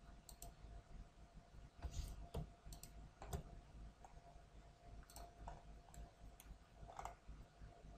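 Scattered, faint clicks of a computer mouse at irregular intervals over a faint steady hum. The clicks fall while points are set for a mirror operation in CAD software.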